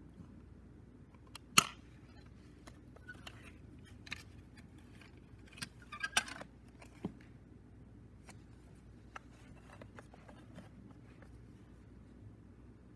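Plastic clicks and taps from a clear cassette case being opened and a BASF CR-E II chrome cassette handled and lifted out. A sharp click comes about a second and a half in, a quick cluster of clicks follows around six seconds, then there are only faint handling ticks.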